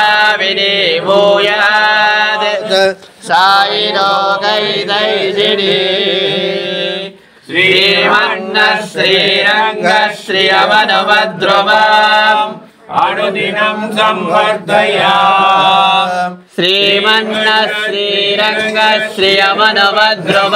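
A group of men chanting verses in unison in a sing-song recitation, in long phrases broken by short pauses for breath every three to five seconds.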